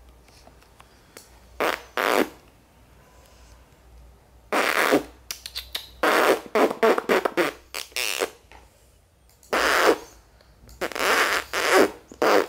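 Fake fart noises: a series of loud, sputtering bursts, some single and some in quick runs of several short ones.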